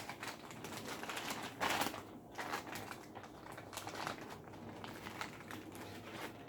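Irregular plastic clicking and rustling as a desk fan's plastic parts and a zip tie are handled and threaded through a gap, with a louder clatter about two seconds in.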